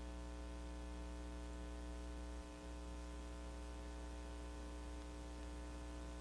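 Steady electrical mains hum with a faint hiss of static on the broadcast audio line, dipping briefly about two and a half seconds in.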